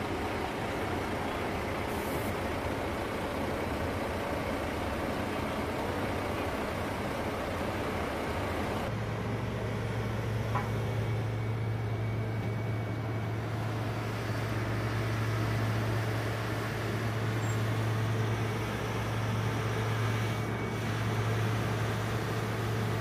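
Fire-truck diesel engines running steadily on the flight line, with a deep steady engine hum coming in about nine seconds in.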